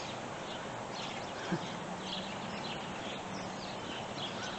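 Small songbirds chirping: short, high calls scattered throughout. A faint steady hum comes in about a second and a half in.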